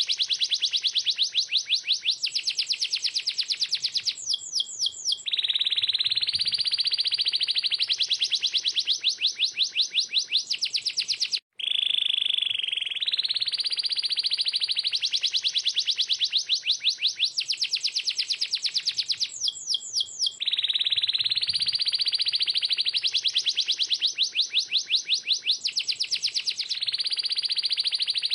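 Domestic canary singing a long, unbroken song of fast high-pitched trills and rolls, switching to a new trill every second or two. The song cuts out briefly about eleven seconds in.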